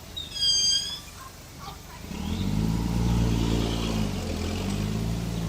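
A short high-pitched squeal about half a second in. Then, about two seconds in, a vehicle engine picks up and runs on steadily, with a brief dip in pitch near the four-second mark.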